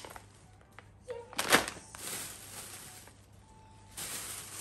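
Thin plastic bag rustling and crinkling in the hands in short spells, with one sharp, loud crackle about a second and a half in.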